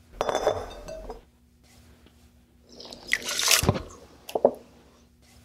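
Beaten raw eggs poured from a glass bowl into a ceramic bowl, splashing for about a second near the middle, after a short rattle at the start.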